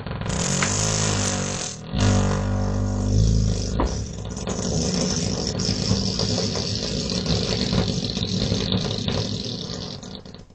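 A long, loud fart from a bloated animal: a low buzzing rumble that breaks off for a moment about two seconds in, then runs on for several more seconds and fades near the end.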